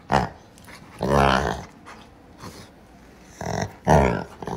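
A dog rolling on its back giving a series of playful growling grumbles: a short one at the start, a longer drawn-out one about a second in, and two more close together near the end.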